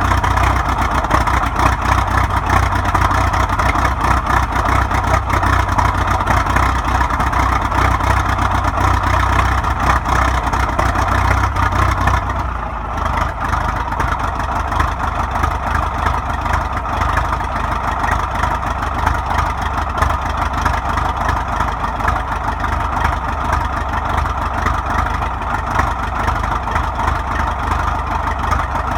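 1947 Caterpillar D7 crawler's four-cylinder diesel engine running steadily after a cold start in sub-zero weather. About twelve seconds in, a low hum drops out and the sound dips briefly before the engine runs on at a slightly different note.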